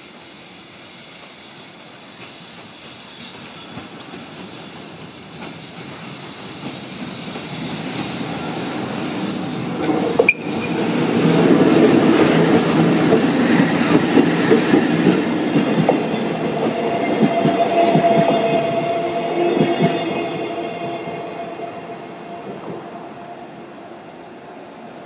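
A pair of JR EF65 electric locomotives, the leading one under power and the second hauled dead, passing close by at low speed after starting off: rumble and clatter of wheels on the rails that builds up, with a single sharp knock about ten seconds in. A steady tone rises over the rumble for a few seconds late in the pass, and the sound then fades as the locomotives move away.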